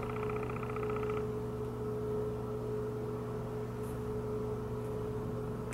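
Steady electrical hum with a clear held tone and a low drone underneath. A faint, fast pulsing buzz over it stops about a second in.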